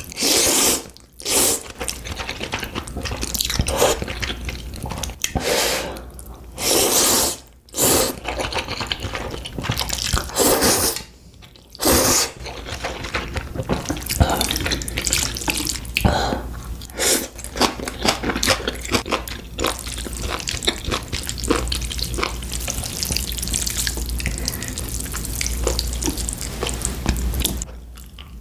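A person eating ramen noodles close to the microphone: loud slurps of noodles every few seconds, with continuous wet chewing clicks between them.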